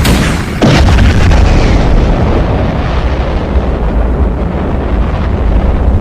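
Fireworks exploding in a continuous loud barrage, with one sharp bang a little under a second in. The crackle fades after about two seconds, leaving a low rumble of booms.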